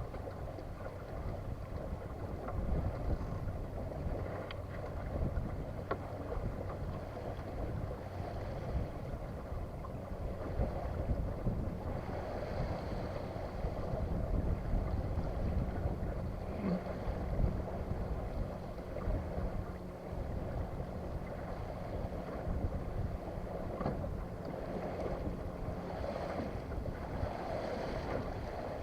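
Wind buffeting the microphone and water moving along the hull of a small sailboat sailing in light wind, a steady low rumble with a few faint ticks.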